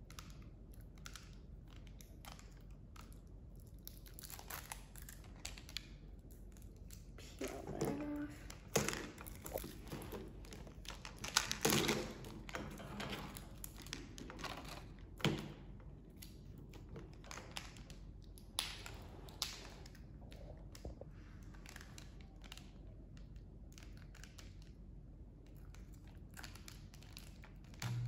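Crinkly plastic wrapper on a Mini Brands capsule ball being torn and crumpled open, an irregular run of crackles with a few louder rips about nine, twelve and fifteen seconds in.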